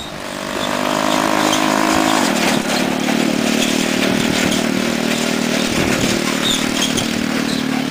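Small ATV engine running, its pitch rising for about two seconds and then dropping to a steady lower note.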